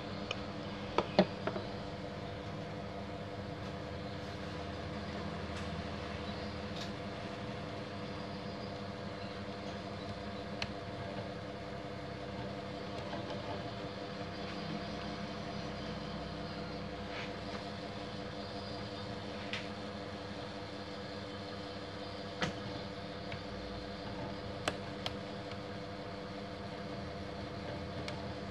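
Steady background machine hum with several fixed tones, under light scattered clicks and taps of a screwdriver and plastic parts as a copier unit is worked on by hand. The loudest is a quick cluster of clicks about a second in, with single clicks later.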